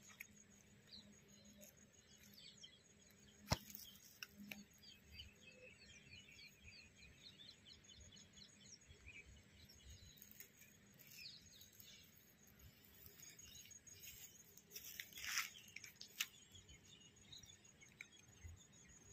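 Near silence outdoors, with faint small birds chirping in quick series of short calls. A single sharp click about three and a half seconds in, and a brief rustle near the end.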